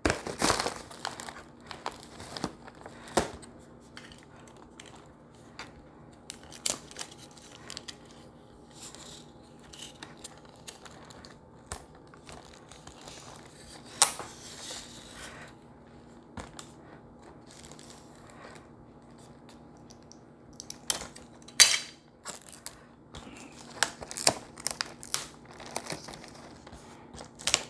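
Crumpled craft paper crinkling and rustling as items are pushed into it, with scattered light clicks and knocks from things being set into a box. A faint steady hum runs underneath.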